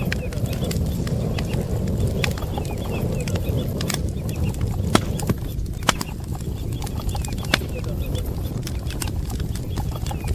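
A small brush fire of dry sticks crackling, with sharp pops about five, six and seven and a half seconds in, over a low steady rumble. Ducklings peep softly now and then.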